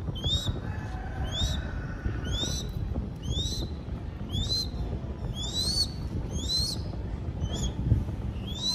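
A downy crested goshawk chick calling over and over: short, high, upward-sliding squeals, about one a second, over a low rumble.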